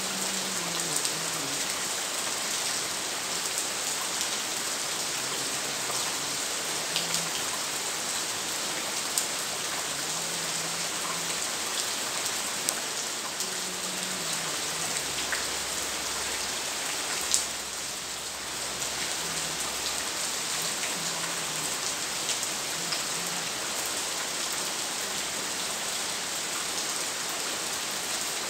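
Steady rain falling, an even hiss with scattered sharper taps of drops.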